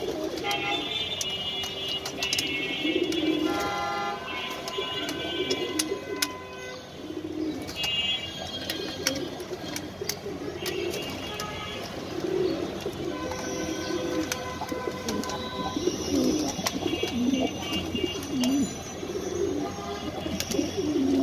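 A flock of domestic pigeons cooing over and over, with scattered sharp clicks of beaks pecking at grain.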